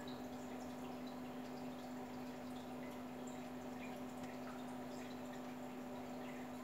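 Aquarium water sounds: the airstone's stream of bubbles breaking at the surface in small scattered drips and pops, over a steady low hum from the tank's pump.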